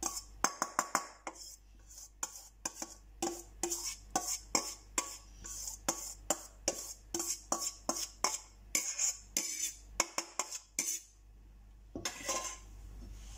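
Stainless steel mixing bowl clinking and scraping against a utensil and the rim of a frying pan as cooked couscous is knocked out into the pan: a long run of sharp, irregular metal clicks, several a second. The clicks stop shortly before the end, and a softer rustle follows.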